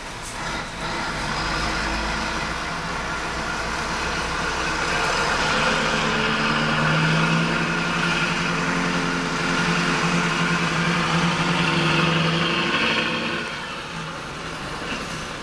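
MAN truck's diesel engine running, heard from inside the cab, its note growing stronger about a third of the way in and falling away shortly before the end.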